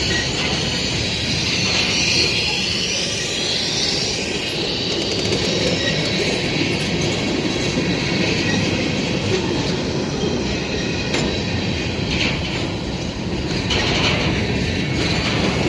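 Norfolk Southern freight train's tank cars and covered hoppers rolling past at close range, a steady rumble and clatter of steel wheels on rail. A high, wavering wheel squeal rises about one to four seconds in and again near the end.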